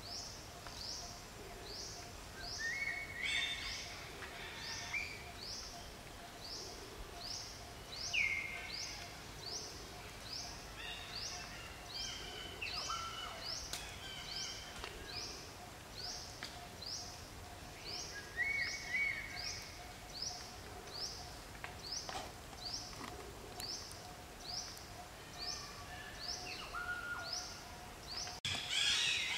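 Forest ambience: a high, short chirp repeating evenly about twice a second, with scattered other calls and a faint steady hum underneath; it breaks off abruptly near the end.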